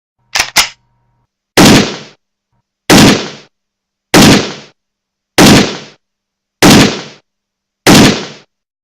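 Two quick clicks, then six single gunshots evenly spaced about a second and a quarter apart, each sharp and loud with a short ringing tail.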